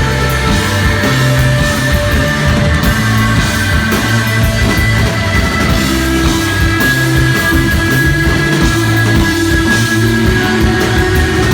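Live instrumental desert rock from a guitar, bass and drums trio: held, droning electric guitar notes over a moving bass line and steady drumming.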